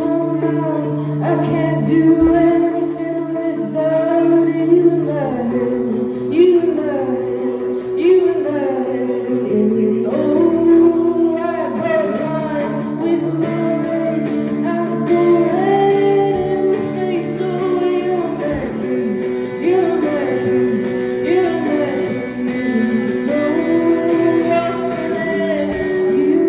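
A woman singing live into a microphone over guitar accompaniment, the guitar holding chords under her voice.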